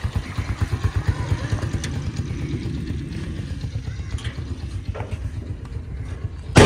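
Motorcycle engine running with a rapid, even putter as the bike pulls out and rides away, its sound fading. A single sharp knock right at the end.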